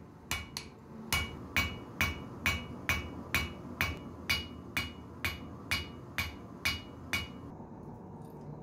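Hand hammer blows on red-hot steel on an anvil, about two strikes a second, each with a bright ring, drawing out the tip of a small steel drill bit. The hammering stops about seven seconds in.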